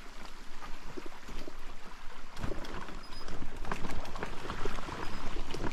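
Footsteps crunching irregularly on a loose stony dirt trail, over the steady trickle of a shallow stream running across and beside the path.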